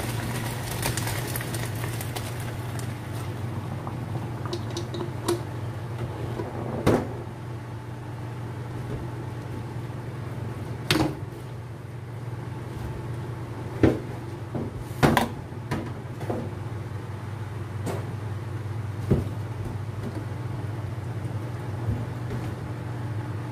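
Hot cooking water and half-cooked rice poured into an aluminium colander in a stainless steel sink, splashing and draining for the first two or three seconds. Then a series of sharp metal knocks, the loudest about halfway through, as the colander is shaken and knocked against the plastic basket and the sink to drain it, over a steady low hum.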